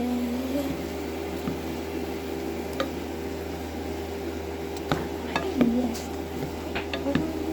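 Steady kitchen hum with scattered light clicks and knocks of cooking.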